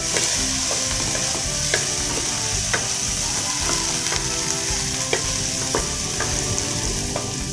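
Sliced ginger and chopped garlic sizzling in hot oil in a stainless steel pan as they are sautéed, stirred with a wooden spatula that knocks against the pan now and then.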